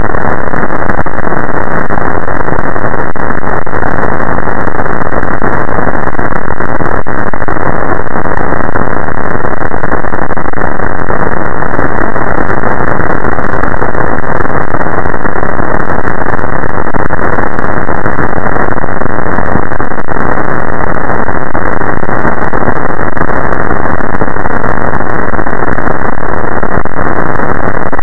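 Constant, very loud static-like noise at full volume, muffled with no treble at all. It holds unchanged, with no pitch and no breaks.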